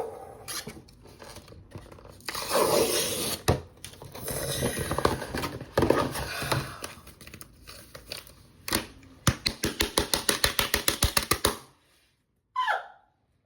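A paper mailing envelope being torn open and its wrapping rustled and crumpled. About nine seconds in comes a fast, even run of sharp rips, about nine a second, as a strip tears along.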